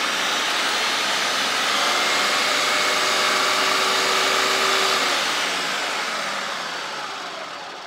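Ninja Mega Kitchen System BL770 1500-watt blender motor running at speed with an empty pitcher, working again after a failed capacitor was replaced. About five seconds in it is switched off and spins down, fading over the last few seconds.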